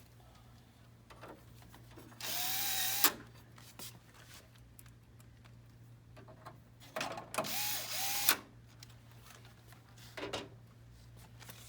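Cordless drill-driver running in two short bursts about five seconds apart, each with a whine, driving in the two mounting screws of a hole punch unit.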